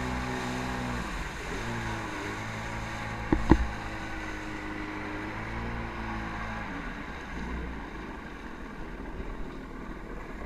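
Jet ski engine running, dropping to a lower pitch about a second in as the throttle comes off, then cutting out around seven seconds in, leaving wind and water noise. Two sharp knocks about three and a half seconds in are the loudest sounds.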